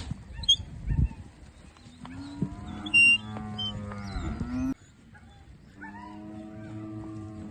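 Livestock calling: two long, drawn-out, steady low calls, the first cutting off sharply just before the five-second mark, with a few high bird chirps in between.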